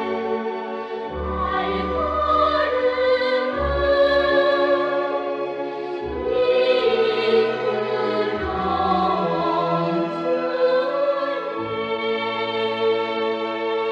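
A choir singing in an operatic style with vibrato over orchestral accompaniment, with sustained low notes underneath.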